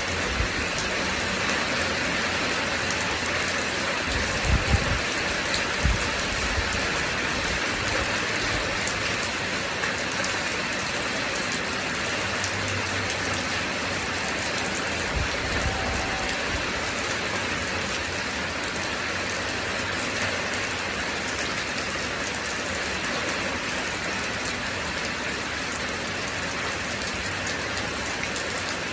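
Steady rain pattering on a surface. A few brief low thumps stand out between about four and six seconds in.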